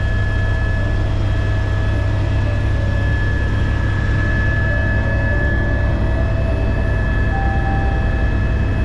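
Helicopter in flight heard from inside the cabin: a steady, loud low drone of rotor and engine with a thin, steady high whine on top.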